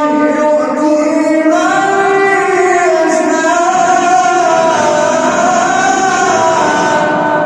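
A man reciting the Quran in the melodic mujawwad style, drawing out long ornamented notes that slowly bend up and down in pitch, the phrase shifting upward about a second and a half in and ending just before a pause near the end.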